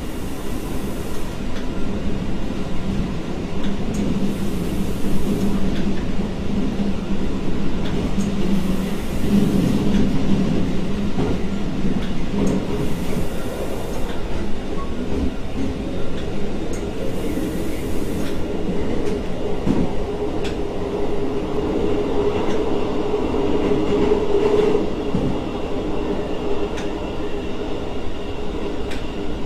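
Diesel train running along the line, heard from inside the driver's cab: a steady engine drone under wheel and track noise, with occasional faint rail clicks. The drone's pitch sits higher in the second half.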